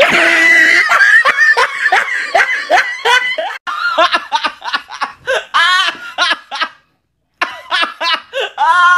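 Two women laughing hard in rapid, high-pitched bursts of cackling, broken by a short silence about seven seconds in.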